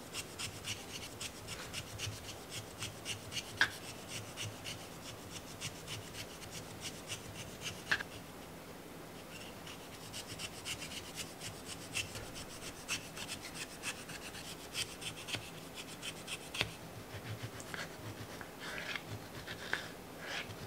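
A handheld vegetable peeler scraping the fuzzy skin off a gold kiwi in a run of short, quick strokes, with a brief pause partway through. Near the end a knife slices through the peeled fruit onto a plastic cutting board.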